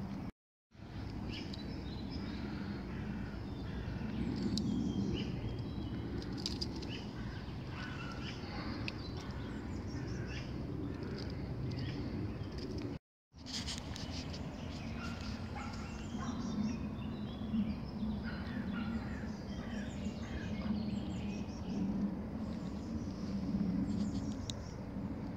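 Outdoor ambience of many small birds chirping and twittering in short scattered calls over a low steady rumble. The sound cuts out to silence twice, briefly: once just after the start and once about halfway through.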